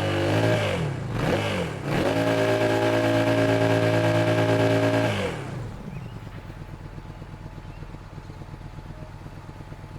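Yamaha XSR700's 689 cc parallel-twin engine held at raised revs, with the revs dropping and coming back up twice, then steady until about halfway, when the throttle is released and it falls back to an even, pulsing idle.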